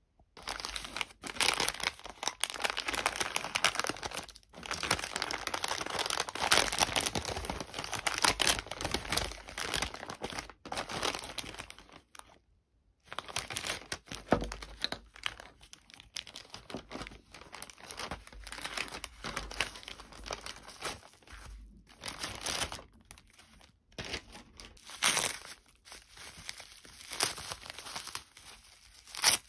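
Packaging crinkling and tearing as it is handled, in irregular stop-start stretches with brief pauses about 4 and 12 seconds in.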